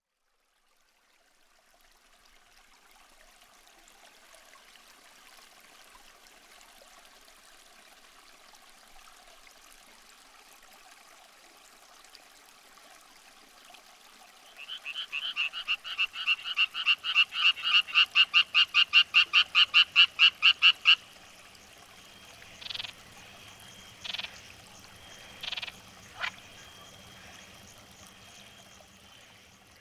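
A frog calling: about halfway through, a rapid, even run of some thirty croaking pulses that grows louder over several seconds, then stops. A few single croaks follow, over a faint steady background hiss.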